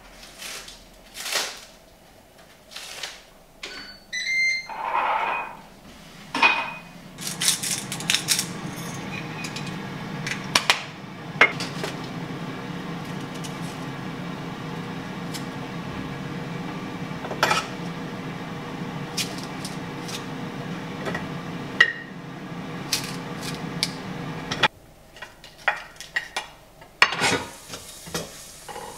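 A few electronic beeps, then a kitchen appliance runs with a steady hum for about twenty seconds and cuts off suddenly near the end. Plates, utensils and tongs click and clink throughout.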